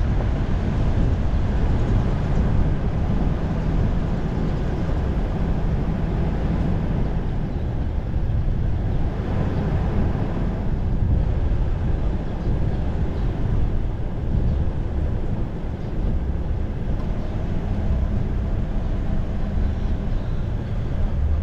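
Steady low rumble of a car driving along a road: tyre, engine and wind noise, with no distinct events.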